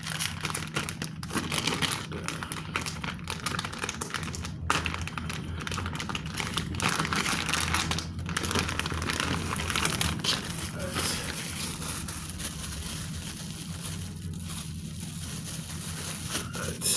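Packaging crinkling and rustling in irregular bursts of small crackles as it is handled and opened.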